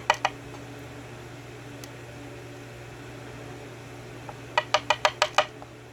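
Small metal parts of a 6-pin Yale lock cylinder clicking as its pin stacks are removed: a quick run of about six sharp, ringing metallic clicks near the end, over a steady low hum.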